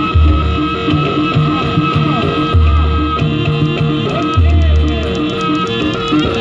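Loud traditional Indonesian dance-troupe music: a quick, steady percussive beat with a held tone and a gliding reed-like melody, and deep booming low notes about every two seconds.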